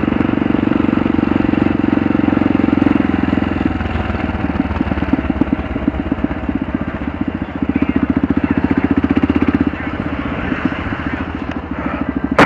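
Kawasaki KLR650's single-cylinder four-stroke engine running at low riding speed with a steady beat of firing pulses. The engine note drops about four seconds in, grows louder again around eight seconds and eases off near ten.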